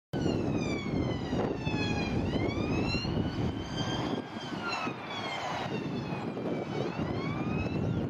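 Police car siren wailing: its pitch falls slowly and then sweeps quickly back up, twice, over the steady rumble of road traffic.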